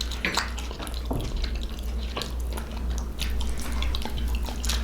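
Wet, close-up eating sounds of ramen noodles in broth: small clicks and smacks scattered through, over a steady low hum.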